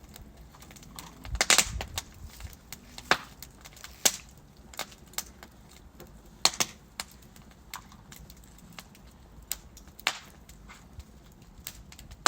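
Wood fire of burning logs crackling, with irregular sharp pops and snaps, the loudest about a second and a half in, near the middle and about ten seconds in, over a soft low hiss of the flames.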